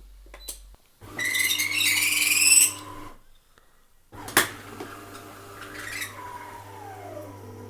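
De'Longhi ESAM 6600 coffee machine switching on: a loud, high squeak over a motor hum for about a second and a half, then a click and the hum starting again with a whine that falls in pitch. This is the start-up squeaking the machine is faulted for.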